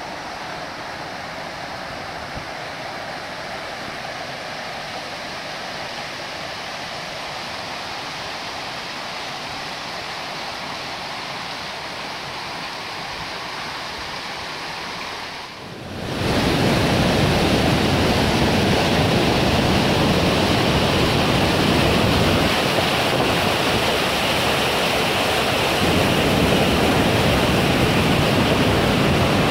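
Steady rush of river water running over rocks. About halfway through it cuts suddenly to a louder, fuller rush.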